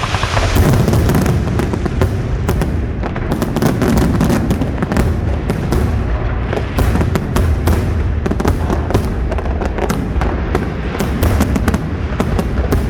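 Aerial fireworks bursting in rapid, dense succession: continuous sharp bangs and crackling, many reports a second, over a steady low rumble.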